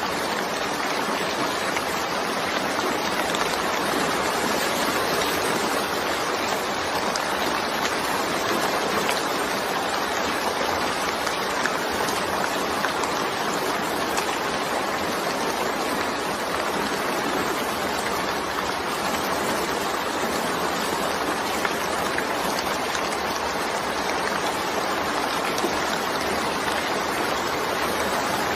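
Steady rain falling, an even hiss that holds at one level.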